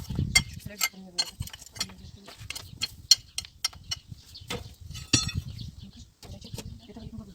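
Bricks and stones of a backyard fire pit clinking and knocking against each other as it is dismantled: an irregular run of sharp knocks.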